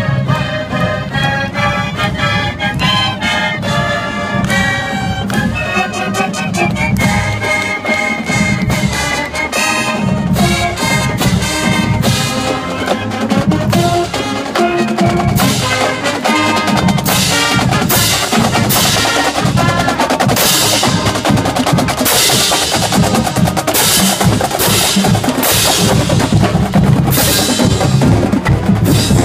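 University marching band playing while marching: horns and saxophones carry a tune, and from about halfway through the drumline's snare and bass drums are loudest with a fast, steady cadence.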